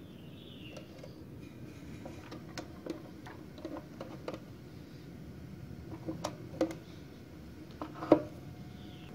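Scattered light clicks and taps of a clear plastic display case and its black plastic base being handled, the sharpest click about eight seconds in.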